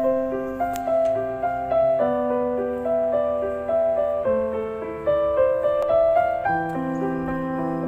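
Background piano music: a repeating broken-chord figure, with the chord changing about every two seconds.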